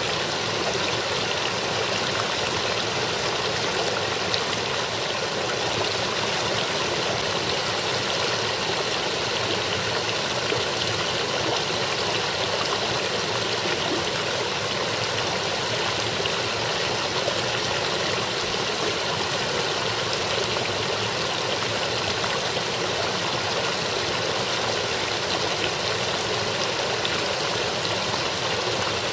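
A partly frozen brook babbling steadily as its water runs over small rocks and ice.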